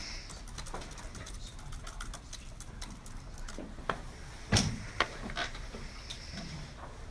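Quiet room sounds during debate prep time: scattered small clicks and taps, with one louder knock about four and a half seconds in.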